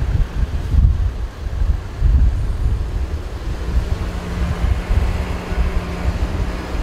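Motorway vehicle noise with wind gusting on the microphone as a low rumble; a steady low hum comes in about halfway through.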